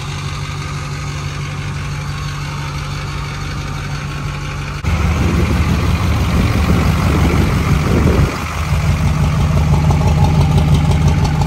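Pickup race truck's engine idling. It runs steadily for about five seconds, then turns louder and rougher for the rest, with a brief drop just after eight seconds.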